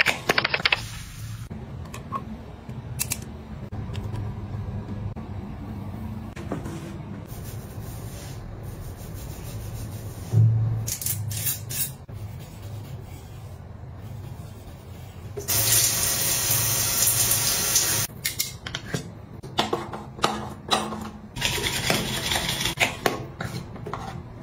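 Water running in a shower, with a loud burst of spray about two-thirds of the way through and another near the end. Scattered clicks and sloshing come from a plastic pump-action foam cup being handled.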